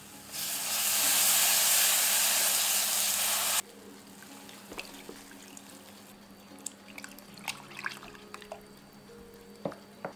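Cold milk poured into a hot butter-and-flour roux in a pan, giving a loud hiss for about three seconds that cuts off suddenly. Then the milk is stirred in with a silicone spatula, with scattered faint clicks and scrapes against the pan.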